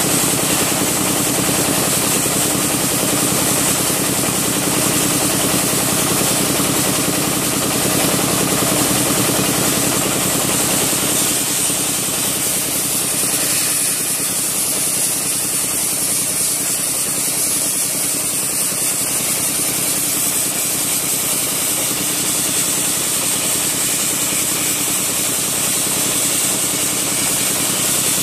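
Wet sandblasting machine running: a steady machine drone under a loud, continuous hiss of air and wet abrasive being blasted out.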